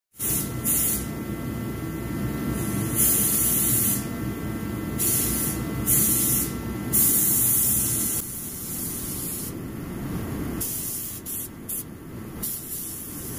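Repeated short blasts of compressed air hissing from a gravity-feed paint spray gun, blown over the bumper cover to clear dust before the next coat. Under the blasts runs a steady low rumble with a hum.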